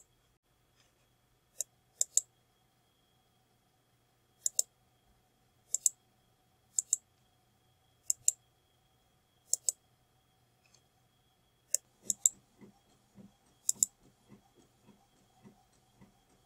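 Computer mouse clicking about ten times, a second or more apart, each click a quick pair of ticks as the button is pressed and released.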